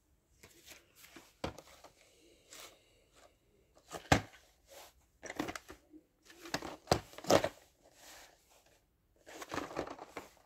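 VHS tapes and their plastic cases being handled: rustling and scraping with several sharp clicks and knocks, the loudest about four seconds and seven seconds in.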